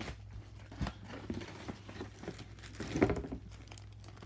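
Plastic packaging crinkling and rustling in the hands as a merch package is unwrapped, with irregular small clicks and handling knocks, the loudest about three seconds in. A steady low hum runs underneath.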